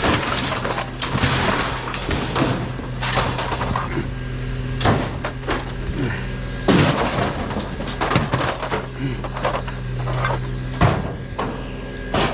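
Hard objects clattering and knocking as curbside junk is handled and sorted, with a few louder bangs, over a steady low hum.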